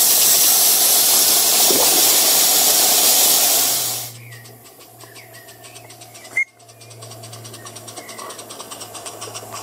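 Live-steam Regner U 11 garden-scale locomotive hissing steam loudly, the hiss dropping away about four seconds in. After that it is much quieter, with faint regular ticking and a low steady hum.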